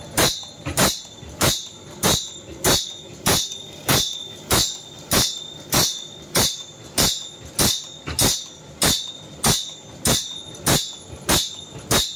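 An automatic band saw blade sharpening machine grinds the blade tooth by tooth. A short, sharp grinding stroke repeats at an even rhythm, about three every two seconds, over the steady run of the machine.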